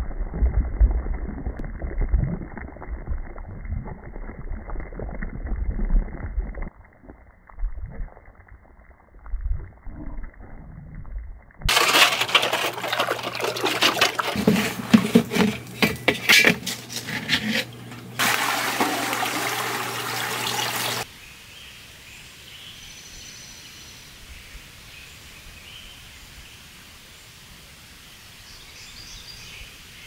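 Quicklime slaking in water in a galvanized tub, the mix boiling and bubbling from the heat of the reaction. A little before halfway it gives way to louder sloshing and scraping as lime is stirred in a plastic barrel, which stops suddenly, leaving a faint steady outdoor background.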